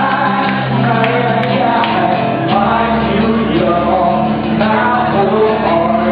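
Live band playing a song with a singer's voice over it, a steady bass line that moves to a new note about two and a half seconds in.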